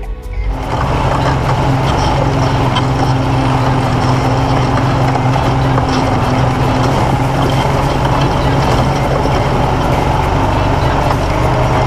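A 2013 Honda Foreman 500 ATV's single-cylinder engine running at a steady pitch while riding, over a broad rushing noise of tyres churning through mud and slush. The engine sound comes in about half a second in, as music drops away.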